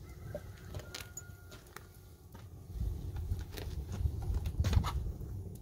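Open wood fire crackling, with a few sharp pops spaced out over a low rumble that grows louder about three seconds in.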